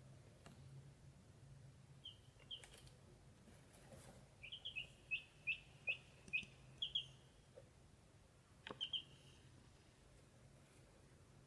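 Ducklings peeping softly: short, high, downward-flicking peeps, a quick run of about ten in the middle and a few more before and after, with a few faint taps.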